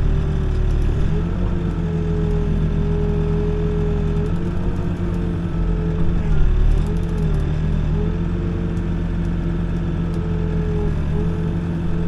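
Backhoe's diesel engine running steadily, heard from inside the cab. Its note sags and recovers several times as the boom and bucket are worked, with a slightly louder stretch a little past halfway.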